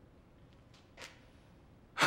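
Near silence, with one short faint sound about halfway through.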